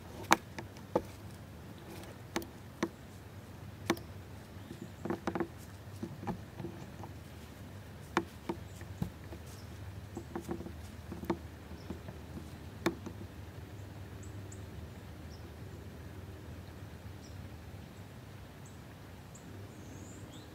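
Scattered sharp clicks and short crunching clusters, irregularly spaced, over the first dozen or so seconds, against a steady low outdoor background; a few faint high chirps come near the end.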